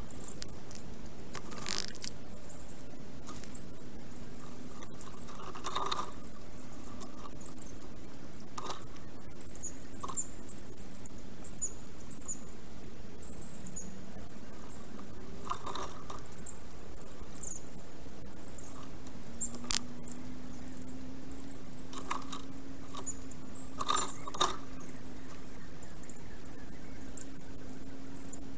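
Forest songbird chirping from a nest-camera microphone, played back at time-lapse speed so it comes out as a dense run of very high, squeaky chirps. Several sharp clicks or knocks are spread through it, over a faint steady low hum.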